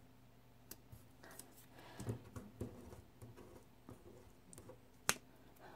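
Quiet handling of paper planner stickers: faint rustles and light taps as a sticker is peeled and pressed onto the page, with one sharper click about five seconds in.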